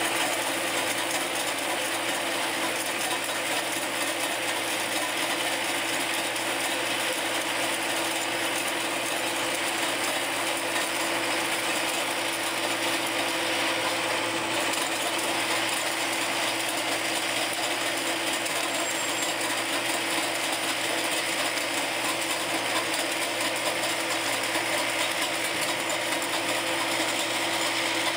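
Hydraulically driven rotary ice cutter on an MTZ-82.1 tractor chipping at road ice: a steady, dense mechanical clatter and grinding that keeps on without a break.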